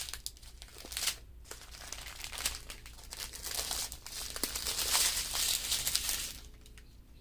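Small plastic bags of diamond painting drills crinkling as they are handled and sorted, a dense run of crackles that grows louder past the middle and eases off briefly near the start and near the end.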